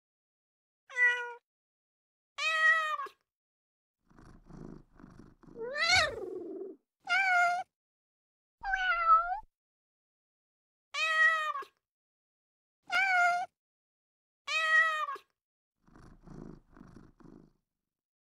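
Recorded cat sound effects from Google's cat search Easter egg, triggered by taps on the phone screen: a string of short meows a second or two apart, about eight in all, with two quieter stretches of pulsing purring, one about four seconds in and one near the end.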